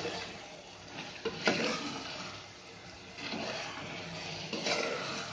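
A spoon stirring chicken in thick masala in a metal pressure cooker pot, scraping and knocking against the pot a few times, with the masala frying in its oil between strokes.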